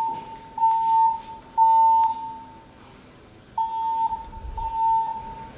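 Fire alarm evacuation tone from a voice-evacuation system's speakers: a steady tone of about 900 Hz pulsed in the temporal-three pattern, three half-second beeps with short gaps, a pause of about a second and a half, then the next group of three, signalling building evacuation.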